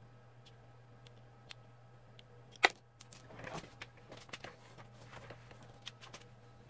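Plastic toy parts and packaging being handled: scattered small clicks, one sharp click about two and a half seconds in, then a stretch of rustling, over a steady low hum.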